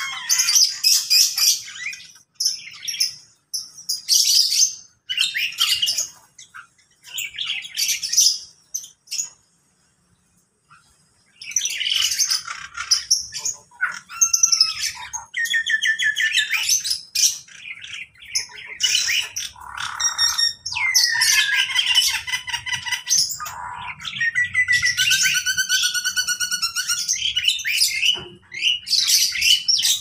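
A mix of aviary birds calling: bursts of chirps, squawks and whistled phrases, with a short lull a third of the way in, then busier calling that includes a few downward-sliding whistles and quick repeated notes.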